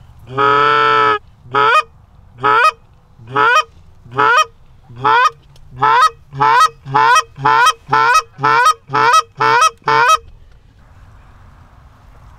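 Handheld goose call blown by a hunter, loud and close: one long honk, then a run of short, clipped honks that speed up from about one a second to about two a second, then stop.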